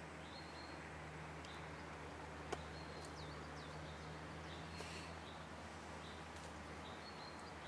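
Quiet outdoor ambience with birds calling in short, high, repeated chirps and a few quick sliding notes over a steady low hum. One sharp click comes about two and a half seconds in.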